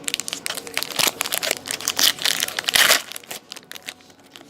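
Trading-card pack wrapper crinkling and tearing as a pack of 2013-14 Black Diamond hockey cards is opened and handled, most intense between about two and three seconds in.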